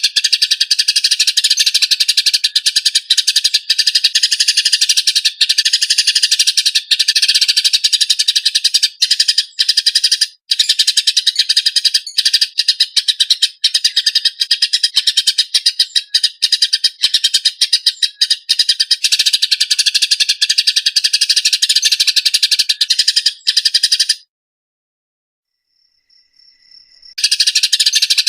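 Eurasian tree sparrows (burung gereja) fighting, giving a harsh, rapid, tightly packed stream of chattering chirps. About 24 s in the calls stop for roughly three seconds, then resume.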